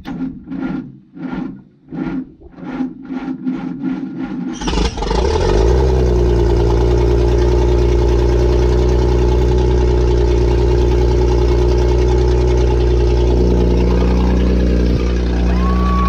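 Dynahoe backhoe engine cranking over on the starter with regular beats that quicken, then catching about four and a half seconds in and running steadily and loudly. This is its first start after weeks of failed attempts.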